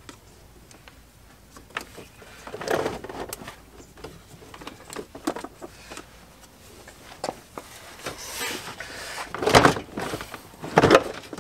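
Irregular clicks, knocks and scuffing of hands and a tool working among the loosened plastic dashboard parts of a pickup, with a few louder knocks near the end.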